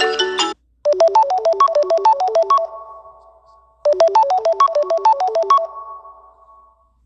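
Samsung Galaxy A71 5G ringtone: a quick run of short, bright electronic notes, about ten a second, that rings on and fades, heard twice in a row. Another tone cuts off half a second in.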